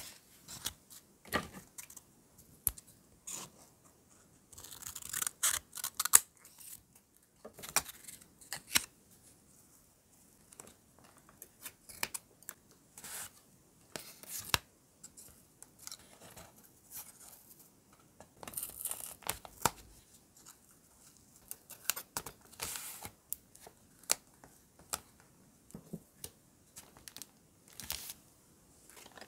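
Paper pieces and ticket-style stickers handled close up and laid onto a notebook page: crisp paper rustling and crinkling in short, irregular bursts, with light taps and clicks from metal tweezers.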